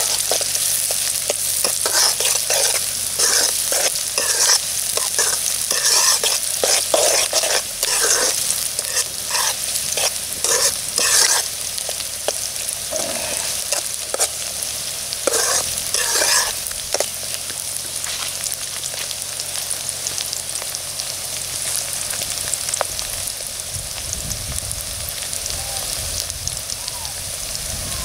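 Chopped onions and green chillies sizzling in hot oil in a metal pot, with a metal ladle scraping and stirring through them in repeated strokes for the first half or so, then a steady sizzle.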